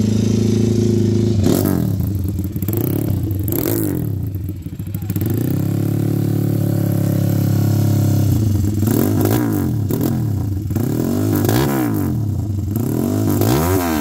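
Custom-built Honda XR200 air-cooled four-stroke single-cylinder engine running and being revved. It holds a steady pitch for stretches, with a couple of throttle blips in the first few seconds, then is revved up and down again and again through the second half.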